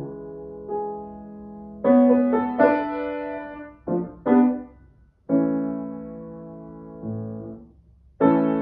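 Grand piano played solo: a slow succession of chords and short figures, each struck and left to ring and fade, with brief pauses between them.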